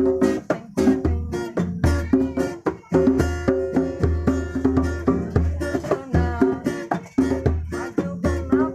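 Music: a fast plucked-string melody over regular deep bass notes in a steady rhythm.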